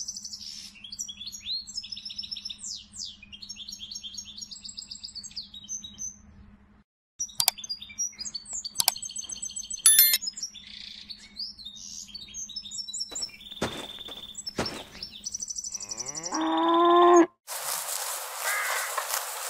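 Farmyard ambience: small birds chirping and twittering over a low steady hum, with two sharp knocks and one cow moo near the end. It then switches abruptly to a steady noise.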